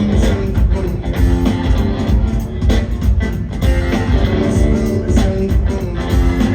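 Rock band playing live in an instrumental stretch between sung lines: guitar over a steady low bass line and an even beat.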